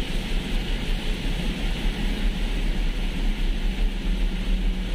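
Steady road noise heard inside a vehicle cruising on a rain-soaked expressway: a heavy low rumble with the hiss of tyres on wet pavement and rain, and a faint steady engine hum.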